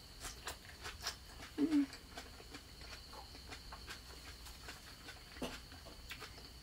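Close-up mouth sounds of chewing fresh herb leaves dipped in sauce: soft, irregular crisp clicks and smacks, with a brief hum about a second and a half in.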